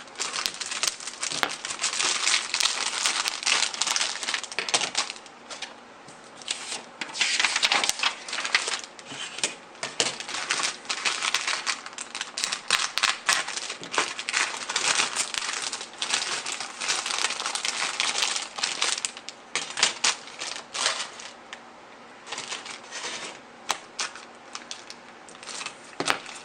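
Plastic packaging of a model kit crinkling and rustling in irregular bursts as it is handled, with many sharp clicks of plastic parts.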